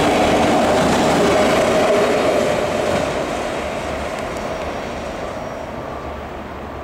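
Freight train's rear autorack cars rolling past on the rails, a steady rolling rumble that fades from about three seconds in as the end of the train moves away.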